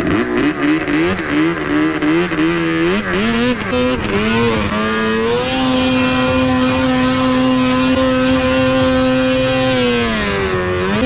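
Snowmobile engine revving up and down, then held at a steady high pitch for about five seconds under full throttle, dipping briefly near the end before climbing again.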